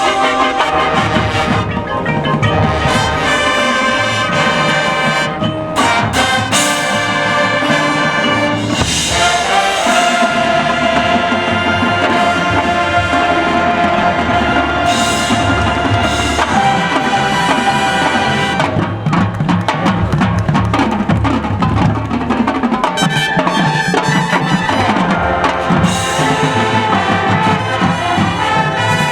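High school marching band playing: brass section of trumpets and trombones sounding loud held chords over the drumline's percussion, with a couple of short breaks in the chords early on before a long sustained passage.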